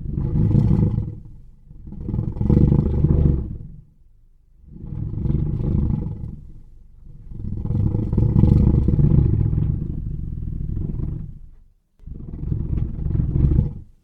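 Designed creature sound effect for a gorgonopsid, a saber-toothed beast: five deep roars one after another, the fourth the longest at about four seconds, with short breaks between them.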